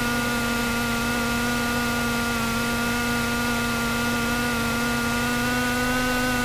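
Cessna 172S's four-cylinder Lycoming IO-360 engine running steadily at low taxi power, heard inside the cabin as an even hum with several steady tones.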